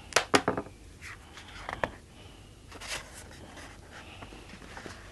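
A large hardcover book being opened and its thick pages turned by hand: two sharp taps just after the start, then softer paper rustles and slides.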